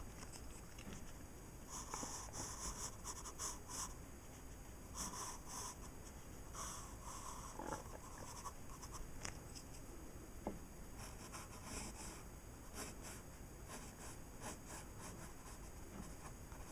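Pencil drawing on paper: short scratchy strokes in irregular bursts with brief pauses between them, as lines are gone over to darken them.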